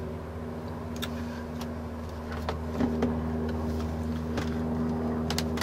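A steady mechanical hum holding one even pitch, with a few light clicks scattered through it.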